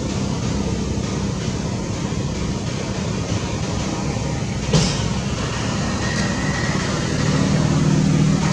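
Steady low hum of a motor vehicle engine running nearby, growing somewhat louder near the end, with a single sharp click about halfway through.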